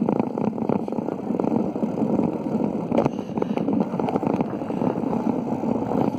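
Wind buffeting a handheld phone's microphone on a moving bicycle: a loud, steady rush with many quick crackles.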